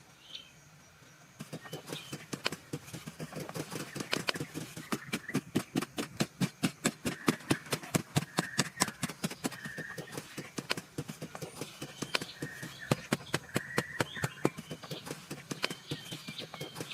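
Rapid, uneven knocking or tapping, about four strikes a second, starting about a second and a half in, with birds chirping.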